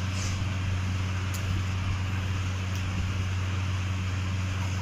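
Steady electric fan hum: a low mains drone under a broad hiss of moving air, with a few faint light ticks.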